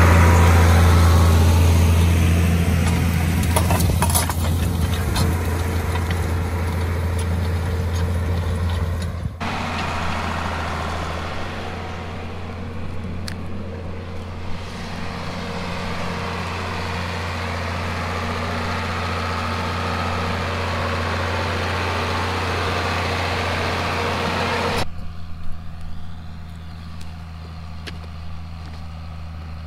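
John Deere 4440 tractor's six-cylinder turbo diesel running steadily under load while pulling a liquid nitrogen applicator. The sound changes abruptly about nine seconds in and again near the end, and is quieter in the last few seconds.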